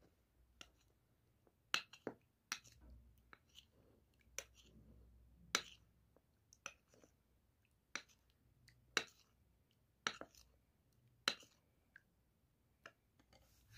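Metal spoon clinking against a ceramic bowl while stirring a liquid mixture: sharp, irregular clinks, roughly one a second.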